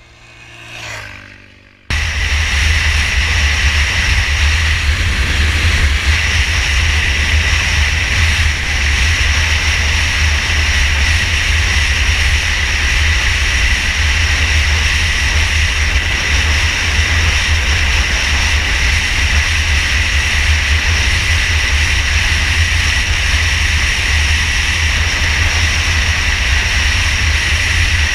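Motorcycle riding at steady speed, heard from an onboard microphone: a steady rush of wind buffeting the microphone over the engine and tyre noise. It cuts in abruptly about two seconds in, after a brief faint swell.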